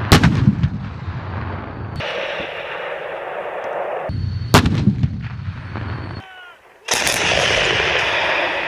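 Heavy artillery fire. A self-propelled howitzer fires with a sharp report and a long rumbling echo, and a second heavy shot comes about four and a half seconds in. From about seven seconds in there is a long, loud rushing blast.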